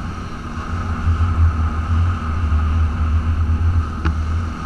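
Polaris Sportsman 550 ATV's single-cylinder engine running steadily under way, a low rumble. A single sharp click about four seconds in.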